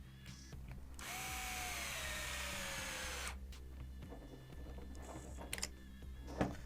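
Electric power driver running a screw for about two seconds, its whine falling in pitch as it slows under load; a couple of sharp clicks follow, over quiet background music.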